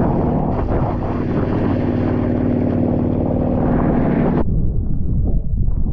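Tow boat's engine droning steadily under the rush of wind and spray from a wakeboard at speed. About four and a half seconds in, the high end cuts off suddenly and the sound turns to a muffled, churning low rush as the camera goes into the water.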